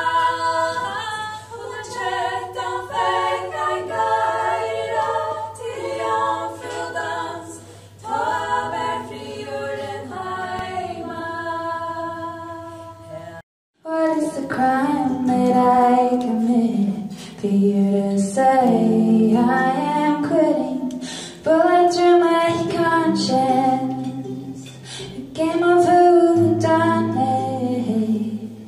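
Group of women singing a cappella, several voices together in harmony. After an abrupt cut halfway through, a woman sings to two acoustic guitars.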